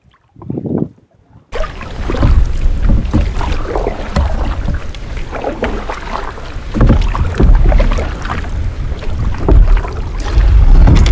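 Canoe being paddled: paddle strokes and splashes in the water. Wind on the microphone adds a low rumble from about a second and a half in.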